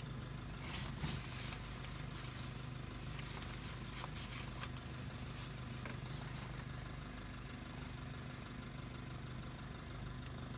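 A vehicle's engine idling steadily with a low, even hum. A few light clicks come about a second in and again about four seconds in.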